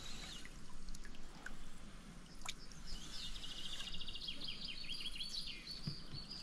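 A small bird singing: a high rapid trill about halfway through, then a run of short falling notes, over a faint steady background hiss.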